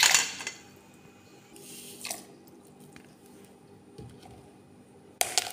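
Onion wedges tipped off a steel plate into a pot of chickpeas in water: a short, loud splash and clatter that dies away within half a second. Fainter handling noises follow, and another brief, loud burst comes near the end.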